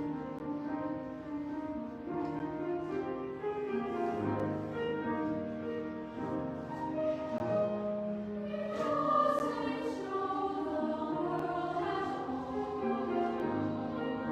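A children's choir singing a slow choral song, held notes moving from chord to chord, with piano accompaniment.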